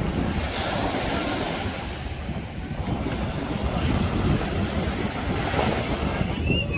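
Wind buffeting the microphone, a steady rushing noise with uneven low rumble. A few short high chirps near the end.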